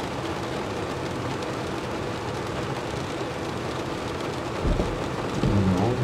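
Rain pattering steadily on a car's windshield and roof, heard from inside the car. Near the end a windshield wiper sweeps across the glass with a low rubbing rumble, after a brief thump a little earlier.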